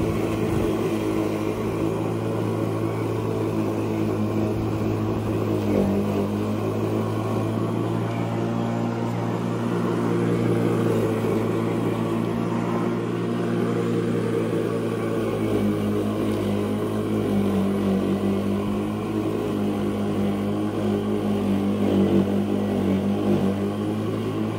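Litheli U20 Handy+ 20 V cordless lawn mower running, its motor and spinning blade giving a steady hum.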